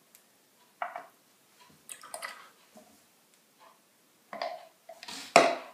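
Spatula scraping the last of the warmed coconut oil out of a plastic measuring cup into a blender jar: a few short, separate scrapes and wet drips, the loudest just before the end.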